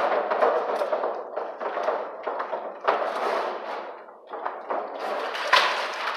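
Insulated electrical wires being pulled and shoved through a distribution board: a continuous rustling scrape of cable against cable and the enclosure, with three sharp knocks, at the start, about three seconds in, and near the end.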